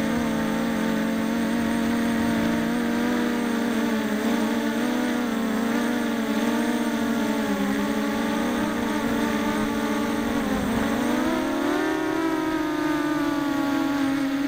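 BPQ270 quadcopter's four Emax 2204 2300kv brushless motors spinning HQ6045 props, a steady buzzing whine of several tones heard close up on the quad's own onboard camera. The pitch dips briefly about ten seconds in, then rises and eases back down as the throttle is cut and opened again.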